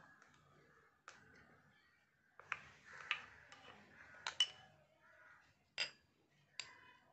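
Spoon clinking and scraping against bowls while salad is served: a run of sharp, irregular clicks with soft scraping between them, the loudest about four and a half seconds in.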